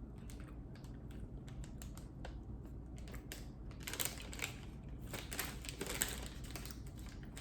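Light, irregular clicks and crackles from a plastic sweets packet being handled as the chocolate inside is got out, growing into a denser stretch of crackling about four seconds in.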